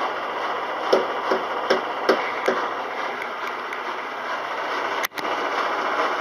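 Kelvinator K605 washing machine running with a steady mechanical noise, with a run of about five quick knocks about a second in and a sharp click with a brief drop-out near the end.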